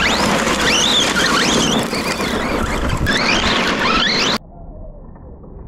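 Brushless motor of a 1/10-scale Team Associated Rival MT10 RC monster truck (Hobbywing 10BL120 G2 ESC, 3150kv motor) on a full-throttle speed run, whining up and down in pitch several times over the rush of tyres spinning on loose gravel. The sound cuts off suddenly about four seconds in, leaving faint ticking of stones.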